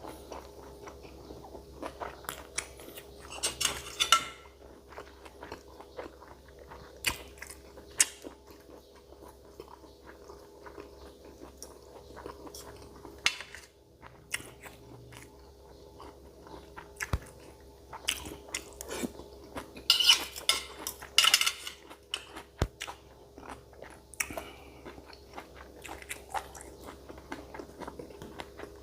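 Close-up mouth sounds of eating spicy beef-foot salad: wet chewing and biting with scattered crunches. There are louder bursts of crunching a few seconds in and again about two-thirds of the way through, over a faint steady hum.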